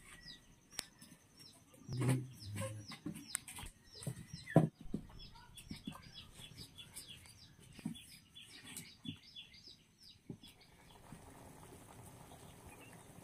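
Birds peeping in quick, high, downward-sliding chirps, several a second, with a few sharp knocks, the loudest about four and a half seconds in. The chirping stops about ten seconds in, leaving a soft steady hiss.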